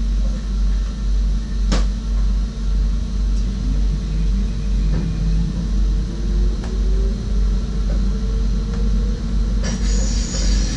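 SGMm Sprinter electric train running on the track, heard from the driver's cab: a steady low rumble with a single knock about two seconds in and a faint whine slowly rising in pitch through the middle. Near the end a loud high hiss sets in.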